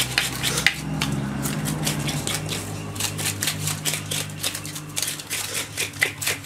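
Fish being scaled by hand with knives: quick, irregular scraping and clicking strokes of the blades against the fish, over a steady low hum.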